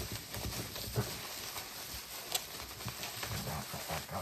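Light clicks and taps with soft rustling as beaded jewelry and its wrapping are handled and set down, with two sharper clicks about a second and two and a half seconds in.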